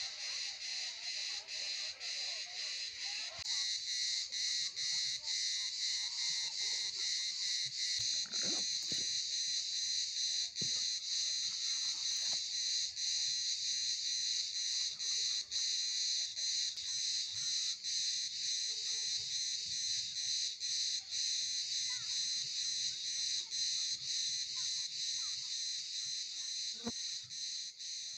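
A chorus of cicadas buzzing steadily, pulsing about twice a second, with a few faint knocks and rustles from someone moving about.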